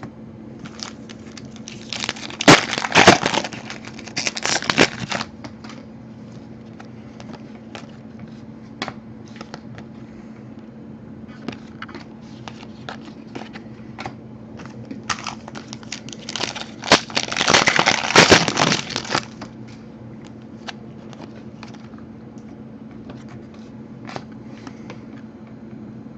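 Panini Prizm trading-card packs being torn open and their foil wrappers crinkled, in two louder spells about two seconds in and again past the middle, with light clicks and taps of cards being handled in between.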